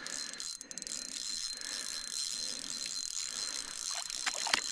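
Spinning reel being cranked to reel a hooked fish up through the ice hole, its gears whirring and clicking, with a sharp click near the end.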